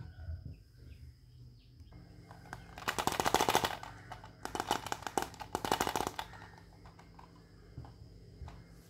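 Small plastic toy teapot rattling as it is handled: three bursts of rapid plastic clicking, each about a second long, with a light plastic knock at the start and a few faint taps near the end.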